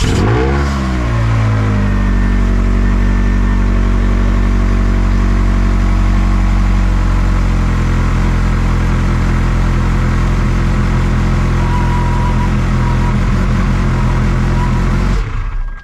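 Ferrari 360 Challenge Stradale's 3.6-litre V8 catching and flaring up in revs right at the start, then settling into a steady idle. It is switched off about a second before the end.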